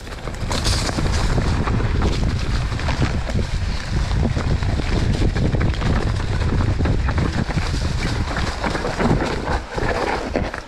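Wind buffeting the microphone of a camera riding on a mountain bike at speed downhill, over the rumble of tyres on a dry dirt trail, with frequent knocks and rattles as the bike runs over bumps.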